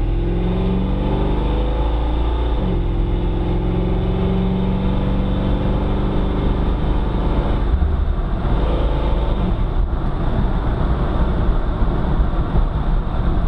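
1985 Chevy C10 pickup's engine pulling the truck up to speed, heard from inside the cab. The engine note climbs, drops at a gear change about two and a half seconds in, then climbs again more slowly, over steady road rumble.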